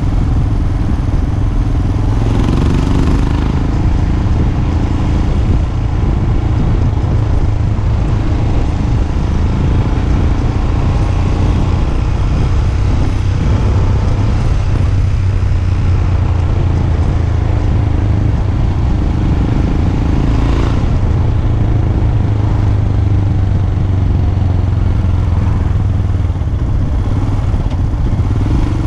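Royal Enfield Himalayan's single-cylinder engine running through a GPR aftermarket exhaust, heard from the bike while riding at a steady pace with a steady low exhaust note.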